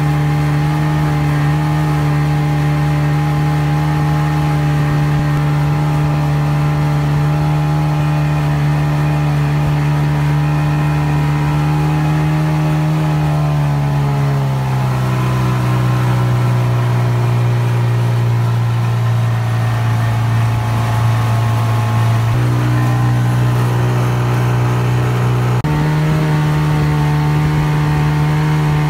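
A small boat's motor running steadily under way, its pitch dropping over a second or two about halfway through as it throttles back, then stepping back up in two stages near the end. Water rushes along the hull beneath it.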